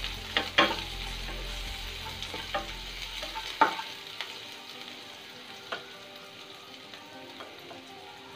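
Chopped onions sizzling in hot oil with mustard seeds, cumin and curry leaves in a non-stick kadai, the onion stage of a poha tempering. A wooden spatula stirs them and knocks against the pan several times in the first four seconds or so; after that the steady sizzle carries on alone.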